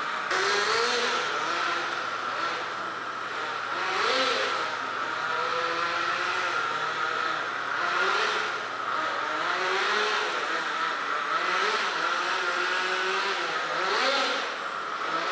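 Small glow-fuel (nitro) engine of a radio-controlled drift car running at high revs, its pitch rising several times, one rev-up every two to four seconds, as the throttle is worked through the drifts.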